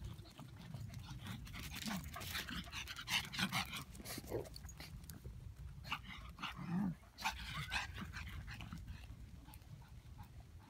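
Two small black dogs, one of them a pug puppy, playing on a dry dirt path: panting and scuffling, with a few short low vocal sounds amid crackly scuffs on the dirt.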